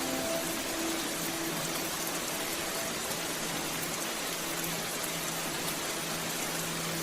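Rain falling steadily, an even hiss, with a faint low steady hum under it that grows a little stronger in the second half.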